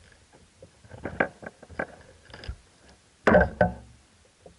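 Scattered knocks and clicks of a rod and gear against a kayak while a caught largemouth bass is handled, then a louder double thump a little past the three-second mark.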